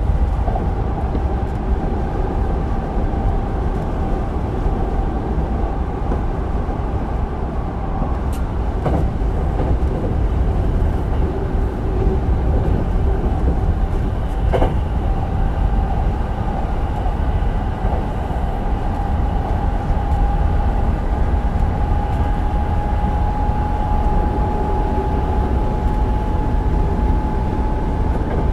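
Hankyu 8000 series electric train with Toshiba GTO-VVVF control running along the line, heard from inside the car: a steady rumble of wheels and bogies with a thin motor whine that slowly rises in pitch through the second half as the train picks up speed. A few sharp clicks near the middle.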